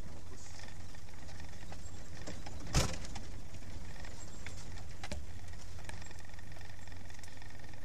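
Land Rover engine running at a slow crawl, a steady low drone, with light rattles and one sharp knock a little under three seconds in as the vehicle rides over the rough dirt track.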